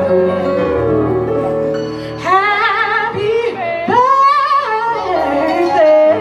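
Live band playing with a woman singing over a bass line; from about two seconds in she holds long notes with a strong vibrato.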